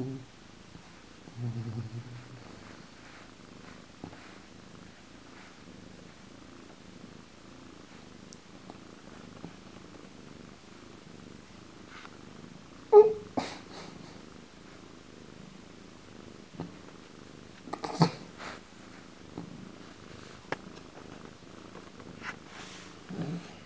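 Domestic cat purring steadily as it is stroked, with a few short knocks and rustles from handling about 13 and 18 seconds in.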